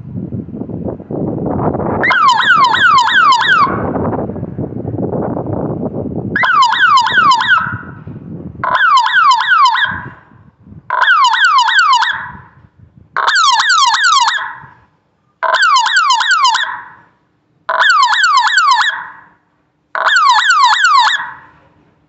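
Solar power fence energizer's alarm siren, a small horn speaker, sounding in repeated bursts of rapid falling whoops. Each burst lasts about a second and a half and they repeat roughly every two seconds. A low rumble runs under the first several seconds.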